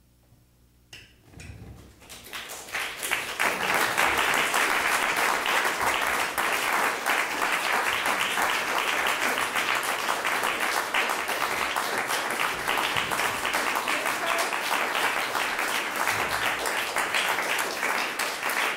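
Audience applauding at the end of a performance: near silence for about a second, then the clapping builds over the next two or three seconds and holds steady.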